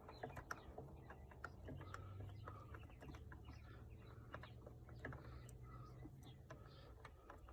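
Near silence: faint, scattered clicks and taps of the ignition switch and its small screws being handled as it is worked free, over a low hum.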